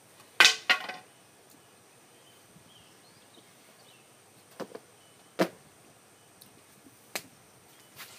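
A few short, sharp thumps: a loud pair about half a second in, two small ones and a stronger one around five seconds, and single ones near seven and eight seconds, with faint bird chirps in between.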